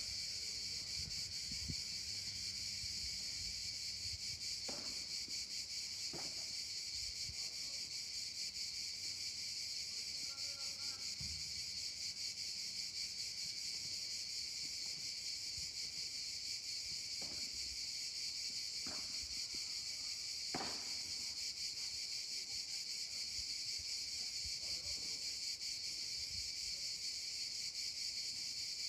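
A steady, high-pitched chorus of insects, with about five sharp knocks of a padel ball in play standing out through it, the loudest about two-thirds of the way in.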